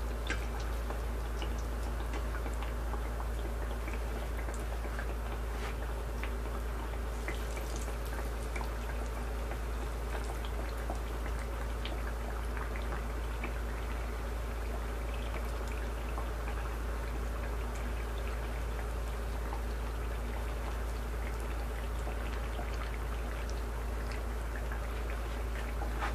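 Pastries deep-frying in hot ghee in a steel pan: a steady sizzle full of small crackles and pops.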